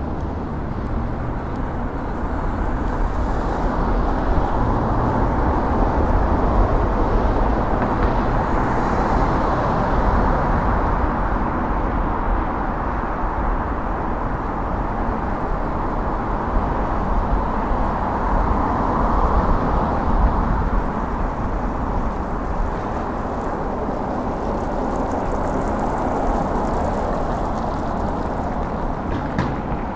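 Steady rush of wind over the microphone and road noise from riding a bicycle along a city street with traffic, the low rumble rising and falling.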